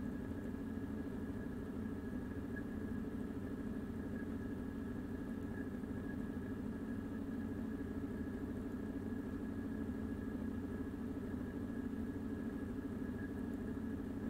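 Steady background hum with a faint thin whistle above it, unchanging throughout.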